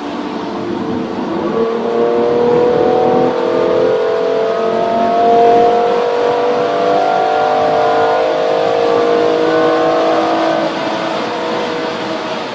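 Car engine pulling hard under sustained acceleration at high speed, its note climbing slowly and steadily, then easing off near the end.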